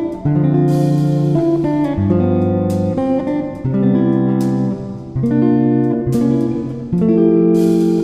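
Background music led by a plucked or strummed guitar, with chords that change about every second.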